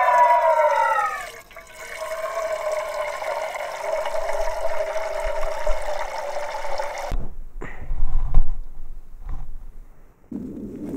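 Water running into a metal camp mug, with a ringing tone that falls in pitch over the first second and then holds steady; the flow cuts off about seven seconds in. A few dull knocks of gear being handled follow, and a steady low rushing noise starts near the end.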